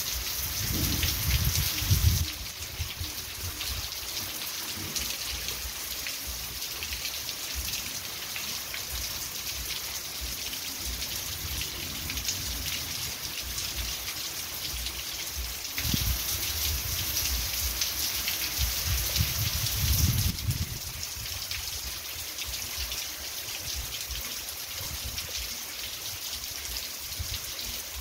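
Heavy rain pouring down and streaming off a roof edge onto flooded ground, a steady hiss that swells louder for a couple of seconds near the start and again for a few seconds about two-thirds of the way through.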